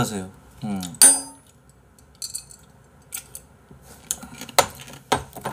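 A tall drinking glass with ice being handled: a sharp ringing clink about a second in, then scattered clicks and knocks of ice and glass, the two loudest near the end.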